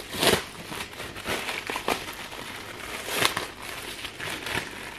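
Thin clear plastic packaging crinkling and crackling as it is pulled open and peeled off a pre-made pizza base, in uneven bursts, loudest just after the start and again about three seconds in.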